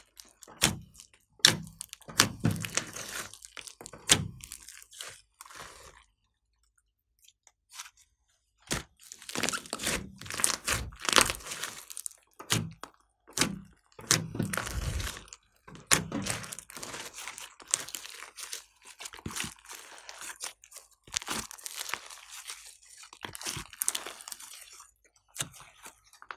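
Hands squeezing, pressing and folding a large mass of glossy slime with foam beads mixed in: irregular wet crackles and sharp sticky pops. The sounds stop for about two seconds a quarter of the way in, then carry on.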